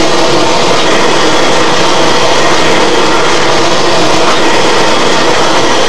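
Two-colour automatic glass cup and bottle screen printer running: a loud, steady mechanical noise without any distinct rhythm.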